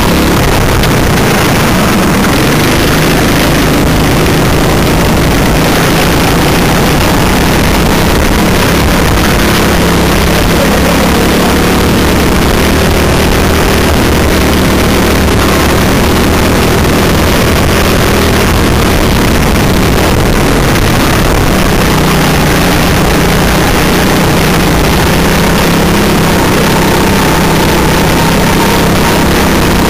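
Go-kart engine running at race pace, loud and close to the onboard microphone. Its pitch wavers up and down as the kart accelerates and lifts through the corners, over a constant rushing noise.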